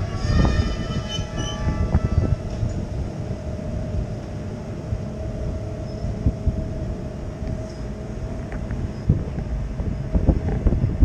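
SBB regional electric train running past a station platform: a steady rumble of wheels on rails, with a cluster of high steady whines that fade out within the first couple of seconds and a lower steady tone that fades about eight seconds in. A few sharp thumps come near the end.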